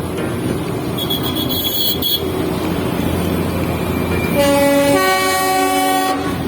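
Darjeeling Himalayan Railway toy train sounding its horn for just under two seconds, starting about four seconds in; the pitch steps up partway through. The train's steady running rumble carries on underneath.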